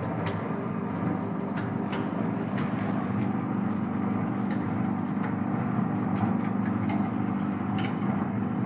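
Table-top sugarcane juice machine running, its 750 W electric motor and three steel rollers giving a steady hum, with scattered small cracks and clicks as the cane is crushed.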